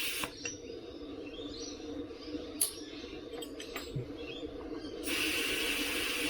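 Air hissing steadily out of a Veteran Sherman electric unicycle's tyre valve, starting about five seconds in after a few light clicks of handling. The tyre is being partly deflated so the bead can be reseated evenly on the rim.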